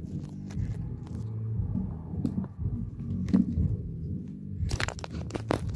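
Handling noise of the phone that is recording: crunchy rubbing and a string of knocks and clicks from fingers on the phone, with several louder knocks about three seconds in and near the end.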